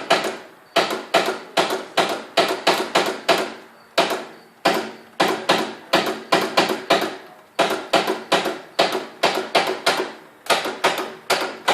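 Riding lawnmower's starter clicking over and over as the key is held, about three to four sharp clicks a second in runs with short breaks. The engine doesn't turn over or start, despite a new, charged battery.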